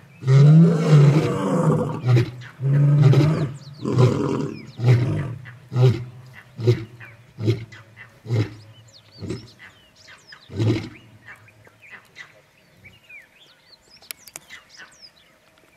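Male lion roaring: two long, deep roars, then a run of shorter grunts about one a second that fade away and end about eleven seconds in. Faint bird chirps follow.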